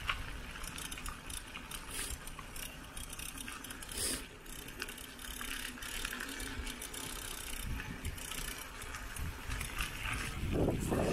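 Mountain bike being ridden over rough ground, rattling with many small clicks, over a low rumble, louder near the end.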